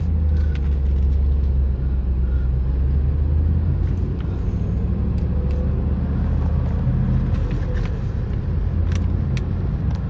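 A 1997 Chevrolet Camaro Z28's LT1 V8 running at low revs, heard from inside the cabin, as the car pulls away and slowly gathers speed: a steady low drone.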